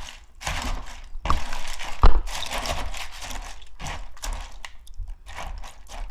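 A hand swishing dried glass noodles around in water in a plastic basin: irregular sloshing and rustling of the stiff strands, with one louder knock about two seconds in.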